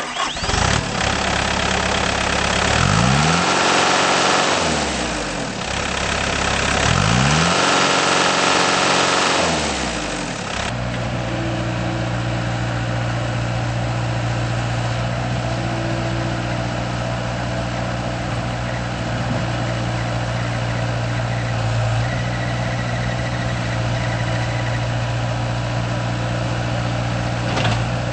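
2011 Bobcat T190 compact track loader's Kubota four-cylinder diesel engine running. It is revved up and back down twice, then settles to a steady idle about ten seconds in.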